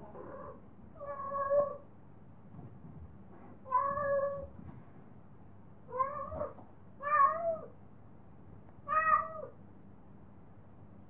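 Female domestic cat in heat calling: about six drawn-out meows spaced one to two seconds apart, several rising then falling in pitch, the first one faint.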